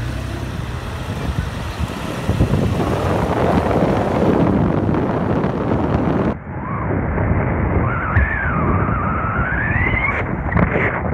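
Wind buffeting a phone's microphone held out of a moving car's window, over steady road noise. The rushing thins out suddenly about halfway through, and a wavering whistle-like tone rises and falls for a couple of seconds near the end.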